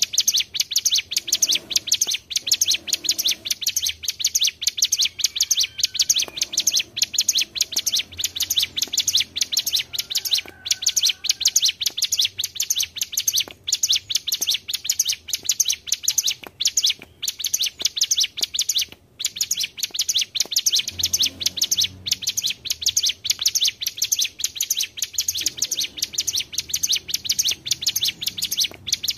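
Ciblek gunung songbirds, a prinia kept as cage birds in Indonesia, singing a continuous, rapid, high-pitched chattering trill of quickly repeated notes, with only a few very short breaks, the clearest about 19 seconds in.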